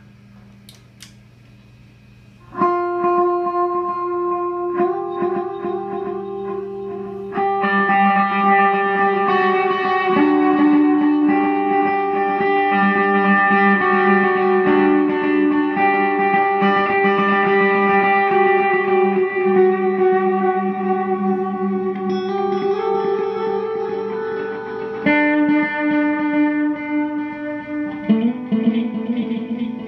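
Electric guitar played through a Vox Delaylab delay pedal: after a faint hum and a single click about a second in, chords come in at about two and a half seconds and ring on, each new chord layered over the long, washing repeats of the last.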